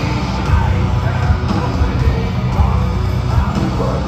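A heavy metal band playing live, loud over a large outdoor PA system, heard from within the crowd.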